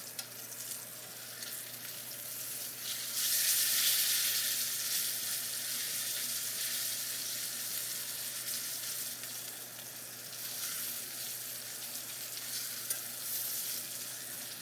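Steak searing in a very hot pan, a steady sizzle that swells louder about three seconds in and then settles back.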